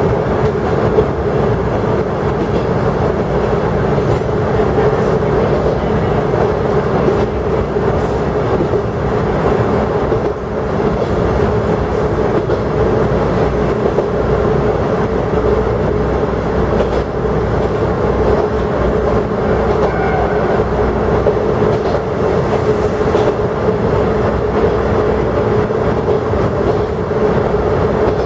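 Kanto Railway Joso Line diesel railcar KiHa 102 under way, heard from inside just behind the driver's cab: a steady drone of engine and running gear with a few faint clicks from the wheels on the rails.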